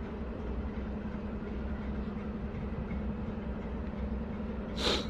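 Diesel locomotive running steadily with a low, even rumble, and a short burst of hiss near the end.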